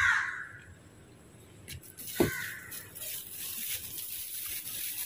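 A bird calling twice in harsh, cawing calls, one right at the start and one about two seconds in, over a steady hiss of background noise.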